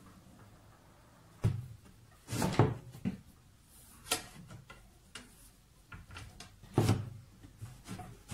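Metal clanks and scrapes from a hand-lever bar bender as a flat steel bar is worked into a ring, with a handful of sharp knocks, the loudest about two and a half and seven seconds in.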